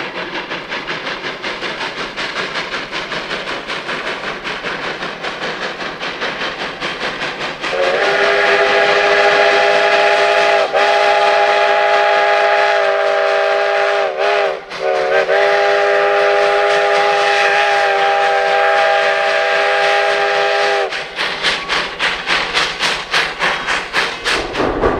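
Virginia & Truckee No. 29, a Baldwin 2-8-0 steam locomotive, working up a grade with a freight train: rhythmic exhaust chuffs, then a long whistle blast of several tones at once. The whistle lasts about thirteen seconds, breaking briefly twice and sagging in pitch once midway. After it, louder and faster exhaust beats as the engine works hard.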